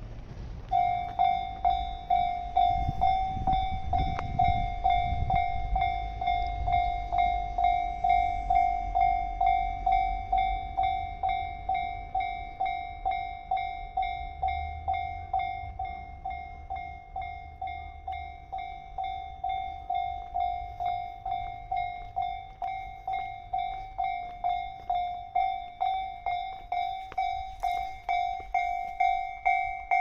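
Japanese railway level-crossing alarm ringing: an electronic bell striking one high tone over and over, about twice a second, starting about a second in. It signals that the crossing has closed for an approaching train.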